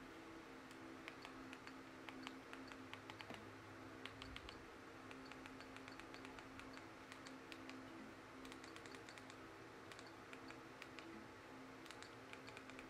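Faint, quick clicks in scattered runs from navigating a Roku TV menu with the remote, over a low steady hum.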